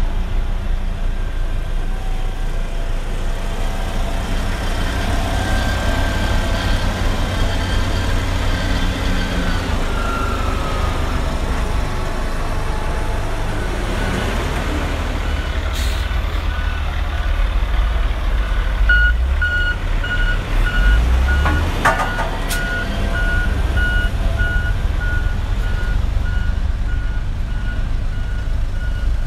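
Diesel engines of single-drum road rollers running with a steady low rumble. About two-thirds of the way in, a reversing alarm starts beeping at about two beeps a second.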